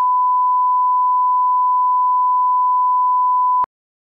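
Colour-bars line-up test tone: one steady, pure beep at a single pitch that cuts off suddenly near the end.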